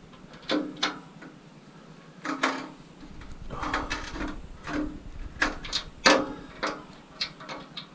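Scrap metal being worked by hand: irregular sharp metallic knocks and clanks, several a second, some with a short ring.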